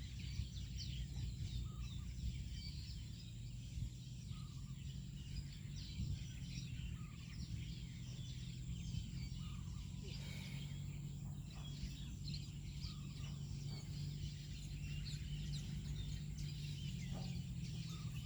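Outdoor ambience of many small birds chirping, with short high calls coming thick and fast throughout, over a steady low rumble.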